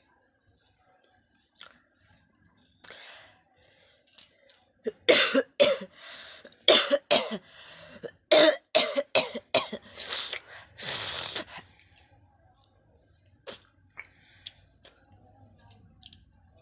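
A person coughing hard and clearing their throat: a run of about a dozen sharp coughs from about four seconds in, ending in a longer rasping one near eleven seconds.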